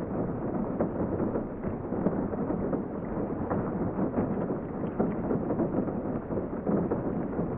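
Steady rain heard from indoors: a dense, even patter of many separate drops, with no thunder.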